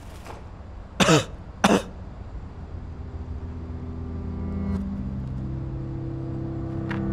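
A person coughing twice, sharply, about a second in, followed by a low steady hum of several tones that gradually swells.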